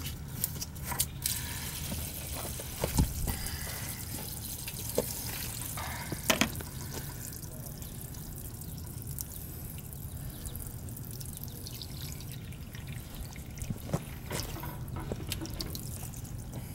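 Water pouring and splashing onto pavement from the open drain port of an old gas water heater tank as its remaining water is drained out. In the first seven seconds there are several sharp clicks and knocks as the brass drain valve is handled and taken out.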